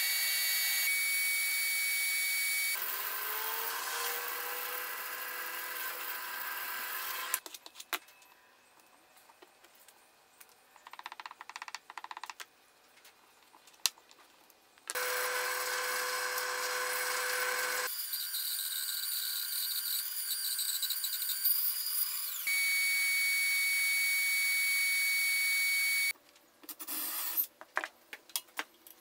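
Workshop power tools in a series of short cuts: a disc sander runs steadily while small plywood gear pieces are held against it, and other machines run in stretches of a few seconds, each starting and stopping abruptly. Between them come quieter stretches of hand work with scattered taps and knocks, one in the middle and one near the end.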